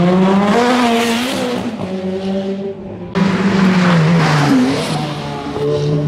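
Ferrari F430's V8 engine revving hard as the car drives past, its pitch rising and falling with the throttle. The sound breaks off about three seconds in and the engine note cuts straight back in, loud.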